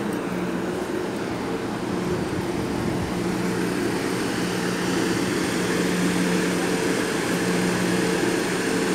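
School minibus idling: a steady, even engine hum that holds at one pitch throughout.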